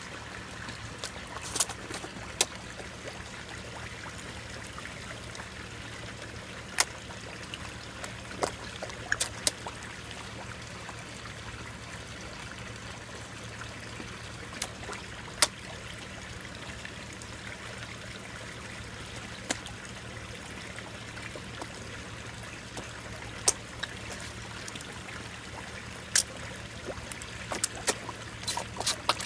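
Koi smacking and slurping at the water surface as they suck at a cob of corn: sharp pops every few seconds, clustering near the end, over a steady trickle of running water.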